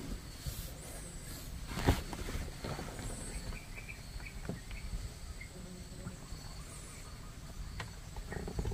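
Quiet outdoor background with a few faint, high bird chirps now and then, and a single sharp knock about two seconds in.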